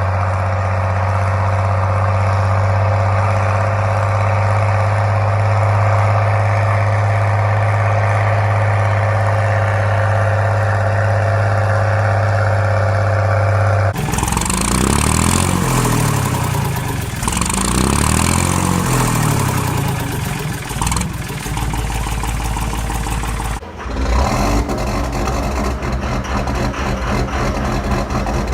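Straight-piped tractor engines, cut together: first one running steadily with a deep, even note; after a sudden cut, an engine revved up and down a few times; after another cut, an engine running steadily again.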